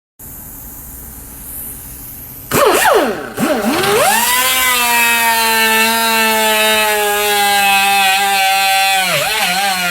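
An engine revved in a few quick blips, then held at high revs for several seconds with a steady, slowly sagging pitch, wobbling as it drops back near the end.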